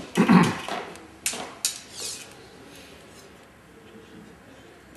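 Brief clattering and rustling from archery gear and clothing being handled close by. The loudest knock comes about a third of a second in, followed by a couple of lighter clicks and rustles, then quiet room tone in a small hall.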